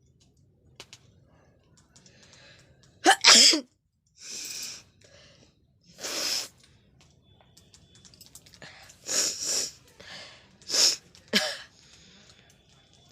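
A person sneezing several times in a row, with sharp breaths between; the loudest is a quick double sneeze about three seconds in.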